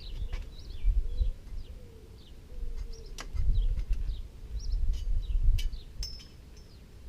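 Small birds chirping in short repeated calls, over gusty low rumbling and a couple of sharp clicks.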